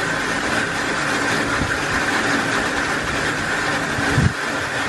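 A steady, engine-like drone, with one low thump about four seconds in.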